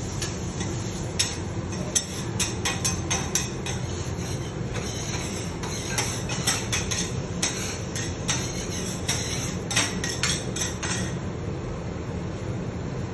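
Metal utensils clacking against a hibachi griddle: a quick, irregular run of sharp taps and clinks that starts about a second in and stops near the end, over a steady background rumble.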